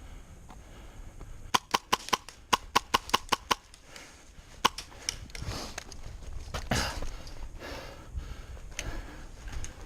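Airsoft gun firing a rapid string of about a dozen sharp shots over two seconds, then a single shot a second later. After that comes a stretch of rustling noise.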